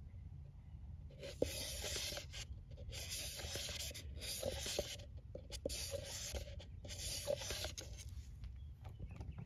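Wooden stir stick scraping around the inside of a plastic mixing cup, stirring a batch of epoxy resin and hardener together, in about five strokes from a second or so in.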